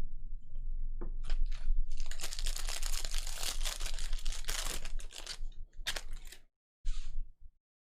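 Crinkling and rustling of packaging as baseball cards are handled, with many small sharp clicks. It is densest in the middle and breaks off into a few separate clicks before stopping shortly before the end.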